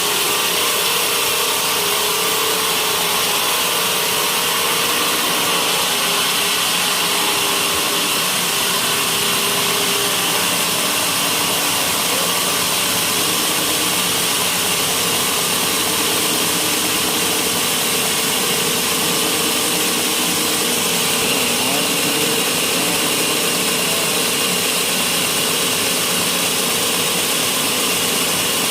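Sawmill saw running steadily as it cuts through a white teak beam, a dense, even, unbroken noise.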